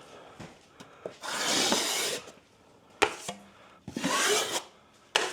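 Two scrapes of a plastering knife working cornice cement, each about a second long, with a sharp click between them and another near the end.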